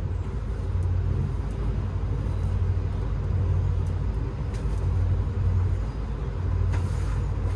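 An engine running steadily in the background, a low even rumble, with a few faint ticks near the end as a spanner works on a hydraulic pipe fitting.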